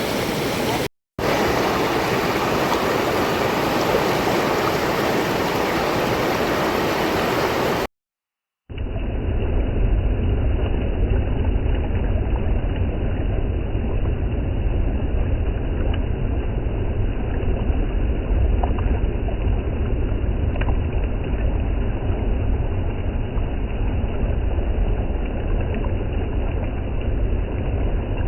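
Rushing river water, a steady full hiss. About eight seconds in it cuts out briefly, then resumes duller, with a heavy low rumble underneath.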